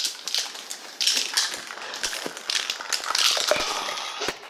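Aerosol spray-paint can being shaken, its mixing ball rattling in quick runs of clicks, with bursts of hiss.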